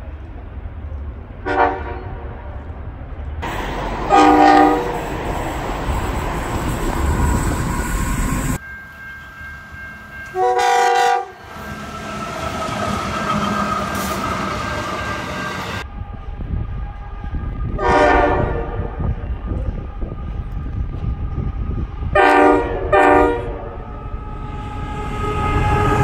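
Diesel freight locomotive air horns sounding about six short blasts of a few seconds' spacing, the longest about a second, over the low rumble of passing freight trains.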